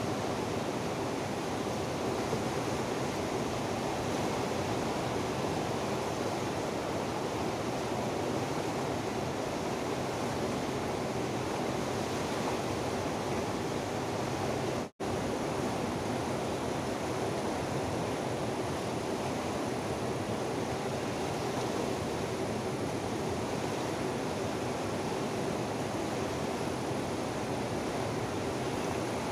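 Fast-flowing river rushing over rocks, a steady, even wash of water noise. The sound cuts out for a split second about halfway through.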